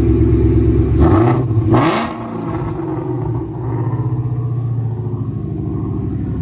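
2018 Ford Mustang GT's 5.0-litre V8 running through freshly installed catless long-tube headers and new mufflers. It runs loud at first, gives two short harsh bursts about a second and two seconds in as the revs fall away, then settles to a steady idle.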